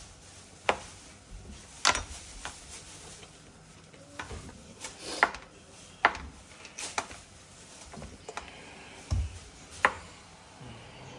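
Kitchen knife cutting mushrooms on a cutting board: about a dozen sharp taps at an uneven pace, some louder than others.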